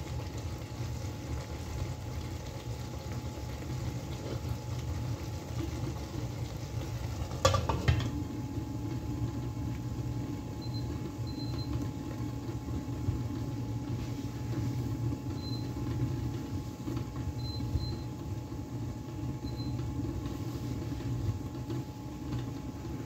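Steady low hum of an induction cooktop with a covered pan on it. About seven and a half seconds in, a pan lid clatters down onto the stainless pan, and later the cooktop's touch controls give several short high beeps.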